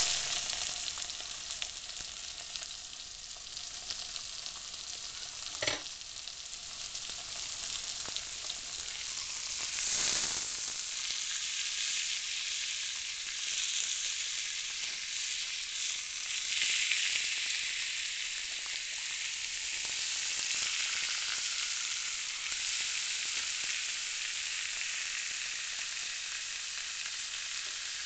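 Angus beef steaks sizzling steadily in a hot cast iron grill pan, with a single knock about six seconds in. The sizzle swells loudly about ten seconds in and again past the midpoint, as the steaks are turned over onto the hot ridges.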